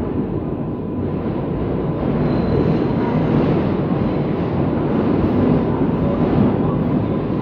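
R142A subway train approaching the station through the tunnel. Its rumble builds over the first two seconds and then holds steady.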